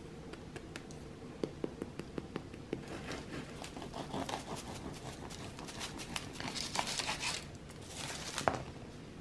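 Crisp baguette crust crackling as a piece is squeezed in the hands, then a knife sawing through the crusty loaf in a run of scraping, crunching strokes, the last one the loudest. A steady low hum lies underneath.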